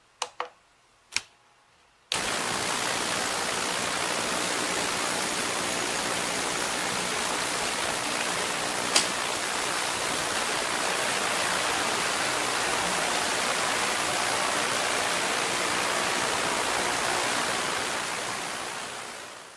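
A few clicks as the DADI DA-968 ultrasonic cleaner's panel buttons are pressed. About two seconds in, the cleaner starts and runs with a steady, even hiss from its water-filled tank, the repaired unit working again at its 30-watt setting. One short click about halfway, and the sound fades out near the end.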